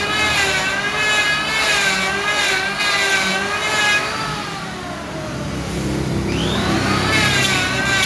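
Electric hand planer running as it shaves a solid trembesi (monkeypod) wood slab: a high motor whine that wavers with each pass. Just past halfway it sinks in pitch and gets quieter, then climbs back up a couple of seconds later.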